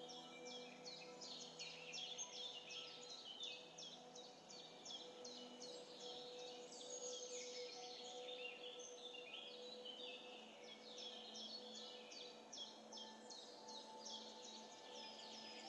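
Faint chorus of small birds chirping, many short falling chirps several a second, over faint steady low tones.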